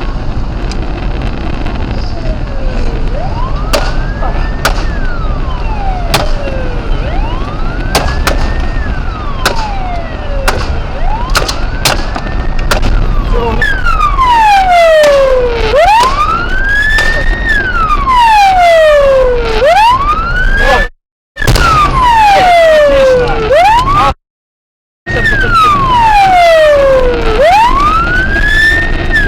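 Police car siren wailing, its pitch rising and falling about every four seconds over a steady low vehicle rumble, getting louder about halfway through. Several sharp cracks in the first half, and the sound cuts out twice briefly near the end.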